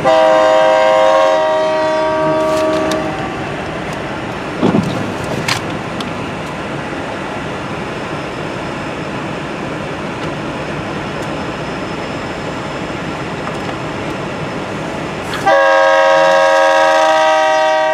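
CN freight locomotive's air horn sounding a chord of several tones for about three seconds, then the steady rumble of the train running on the rails, and the horn sounding again near the end.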